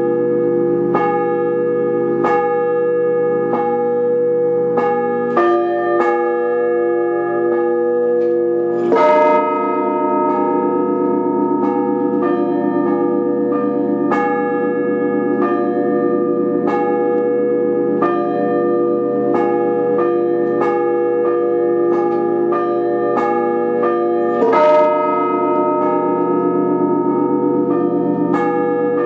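Russian Orthodox church bells rung in a continuous zvon: quick repeated strikes of the smaller bells over a bed of long-ringing tones. Two louder, fuller strokes land about nine seconds in and again some fifteen seconds later.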